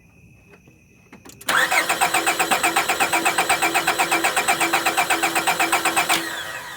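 1998 Honda Accord engine cranking on its starter without catching: a fast, even chugging that starts about one and a half seconds in, runs for about five seconds and then dies away. It is a no-start, with new spark plugs fitted and a fuel pump the owner calls weak.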